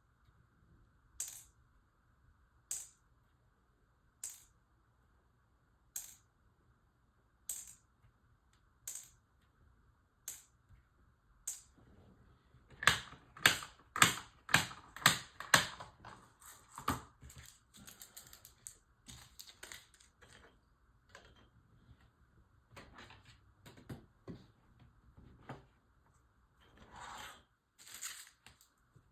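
Light clicks and taps of small model-kit parts and tools being handled: a sharp click about every one and a half seconds, then a run of louder knocks about halfway through, followed by scattered light clicking.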